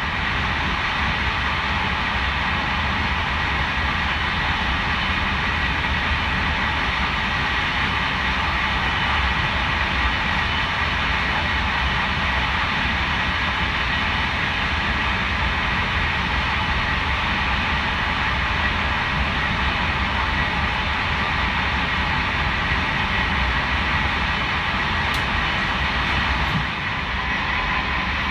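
Steady rush and rumble of an NMBS/SNCB passenger train running at speed, heard from inside the carriage, with a thin steady whine over it.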